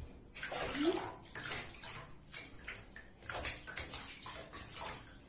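Water splashing and sloshing in a bathtub as a cat is washed and rubbed down by hand, in irregular wet swishes.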